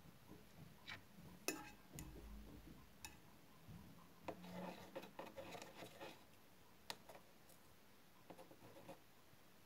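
Faint handling of a paintbrush and watercolour paint set: scattered light clicks and taps, with a few seconds of soft rubbing and scratching around the middle.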